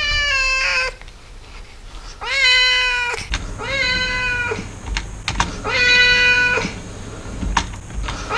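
Siamese cat meowing four times: long, drawn-out meows about a second each, the first falling in pitch and the later ones rising then levelling or dipping at the end. A few sharp clicks fall between the later meows.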